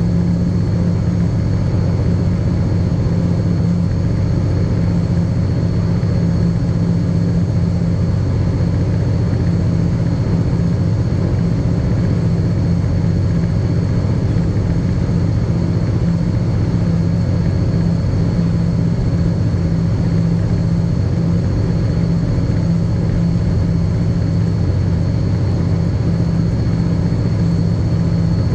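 Diesel locomotive engine running at a steady, unchanging speed, a deep drone with a thin high whine above it.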